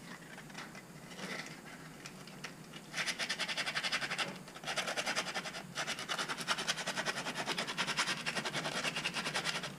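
Sandpaper rubbed rapidly back and forth on a black plastic scabbard mounting bracket, squaring up a badly cut slot so its hole will line up. The fast, even strokes start about three seconds in, after some light handling, and break off briefly twice.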